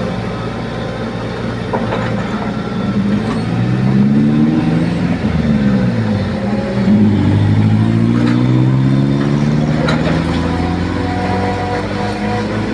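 Engine revving: its pitch climbs over a couple of seconds, drops away about five seconds in, then climbs again and holds steady, with a few light knocks.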